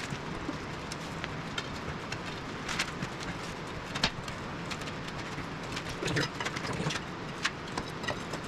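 Scattered clinks and knocks of hand tools and metal parts during work on a skid steer's track and undercarriage, the sharpest knock about four seconds in and a cluster near the end, over a steady background hiss.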